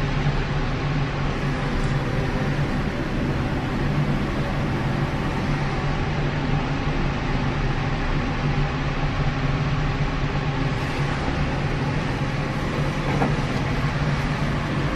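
Steady running noise of a moving vehicle: a constant low hum with road rumble that holds even throughout.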